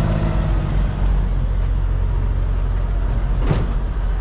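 Heavy diesel truck engine idling with a steady low hum, and a single sharp knock about three and a half seconds in.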